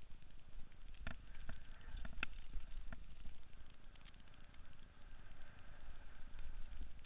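Low wind rumble on a helmet-camera microphone during a downhill mountain-bike run, with scattered clicks and knocks from the bike rattling over rough trail, most of them about one to three seconds in.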